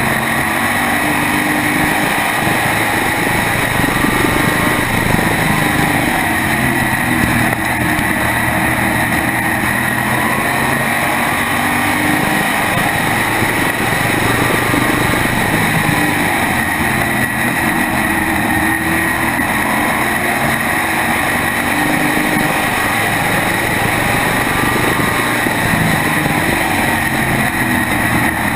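Onboard sound of an SK modified race car's V8 engine under race power, its pitch rising and falling in cycles as the car runs laps. Other modifieds close by in the pack add their engines, and a steady high whine runs under it all.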